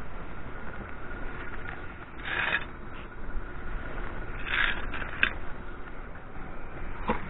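Steel pressure-washer gun and lance handled and scraped over concrete beside its rubber high-pressure hose: two short scrapes, a couple of seconds apart, and a few light clicks over a steady low background noise.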